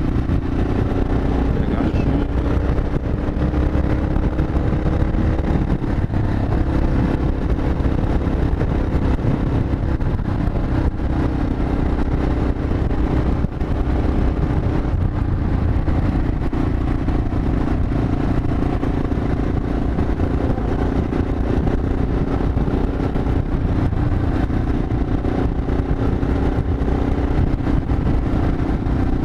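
Yamaha XT 600E's single-cylinder four-stroke engine running steadily at highway cruising speed, its note shifting slightly up and down, with wind rumble on the helmet-mounted microphone.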